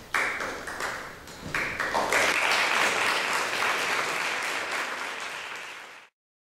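Audience applauding in a concert hall. It starts as scattered claps, swells into full, dense applause about two seconds in, and cuts off abruptly near the end.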